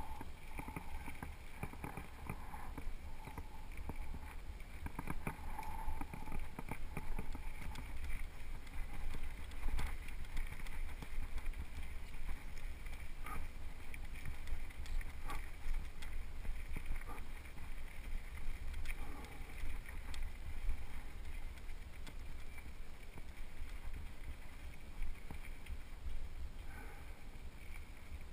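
Mountain bike riding down a rocky gravel singletrack, heard from a helmet camera: a steady rumble of wind on the microphone with tyre noise, and frequent sharp clicks and rattles as the bike runs over stones.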